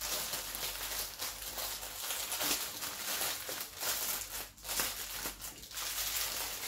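Clear plastic bags crinkling continuously and irregularly as hands handle and unpack a bundle of small bags of diamond painting drills.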